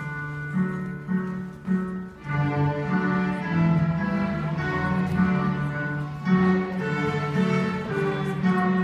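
Fifth-grade string orchestra of violins, violas and cellos playing together, the sound filling out from about two seconds in.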